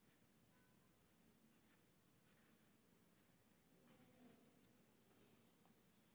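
Faint pencil sketching on paper: short scratchy strokes every second or so, the loudest about four seconds in.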